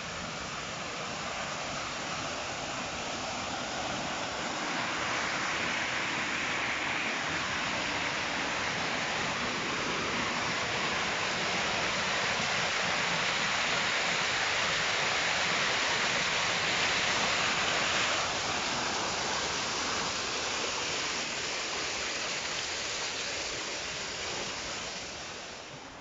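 Steady rush of a waterfall splashing down a rock face into a stream, swelling about five seconds in and easing off after about eighteen seconds.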